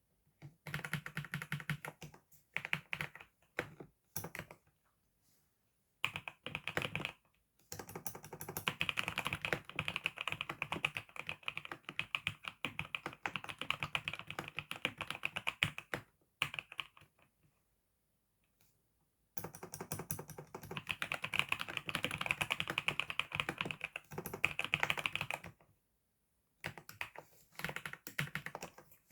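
Fast typing on a computer keyboard: dense runs of keystroke clicks, broken by a few pauses of one to three seconds.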